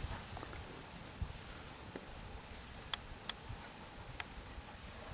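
Steady high-pitched chorus of crickets or similar insects, with a few faint clicks.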